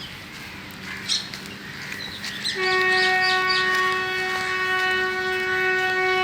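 WAP-4 electric locomotive's horn sounding one long, steady blast, starting about two and a half seconds in.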